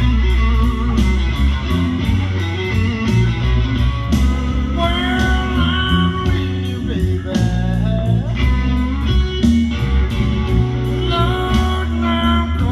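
Music: a band with electric guitar, bass and drums playing a blues-rock tune, with a bending melody line from about a third of the way in.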